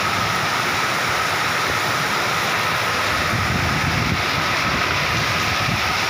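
Torrential rain pouring down in a strong windstorm, a dense, steady hiss of rain on roofs with wind surging through it.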